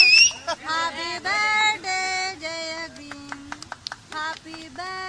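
A high voice singing a slow tune in held notes, opening with a short rising squeal, with a few faint ticks around the middle.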